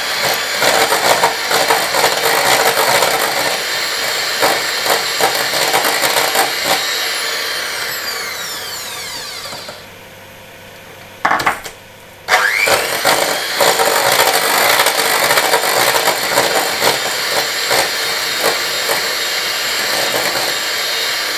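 Electric hand mixer whipping egg whites in a stainless steel bowl, with irregular clicks over the motor's running. About nine seconds in it is switched off and winds down, falling in pitch. After a pause of about three seconds, broken by one short blip, it starts up again, rising in pitch, and runs on.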